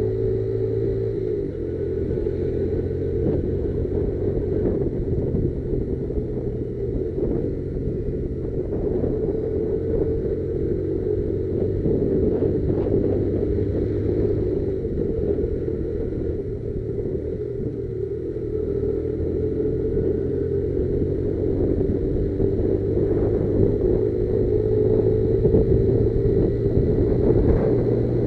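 Motorcycle engine running continuously, its pitch drifting slowly up and down with small changes in speed, with a low rumble underneath.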